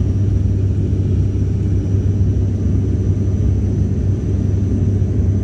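Cabin noise of an ATR 72-600 turboprop in cruise flight, heard inside the cabin beside the propeller: its Pratt & Whitney PW127M engines and propellers make a steady, even low drone, with a faint steady high whine above it.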